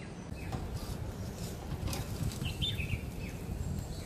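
A few sharp metal clicks of tongs against a wire grill basket on a gas barbecue grill, over a steady low rush. Birds chirp briefly about halfway through.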